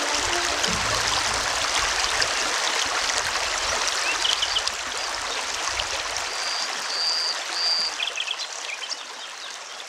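Muddy river water flowing and rippling, a steady hiss of running water that fades toward the end. A few brief high chirps sound over it about four seconds in, and three longer high notes come around seven seconds.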